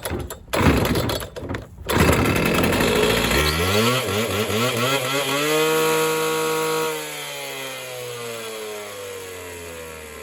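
Gas two-stroke concrete cut-off saw being pull-started on choke: a couple of yanks on the starter cord, then the engine catches and revs up. It holds a steady high speed for a moment, then slows and winds down, getting quieter, near the end.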